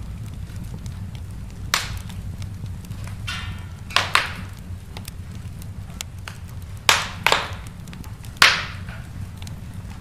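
Wood fire crackling in a fireplace over a steady low rumble of flames, with scattered small ticks and about six sharp pops. The loudest pop comes near the end.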